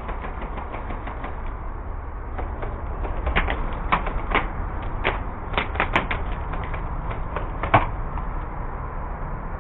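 A dozen or so short, sharp clicks and snaps at irregular intervals, bunched in the middle of the stretch with the loudest near the end, over a low steady rumble.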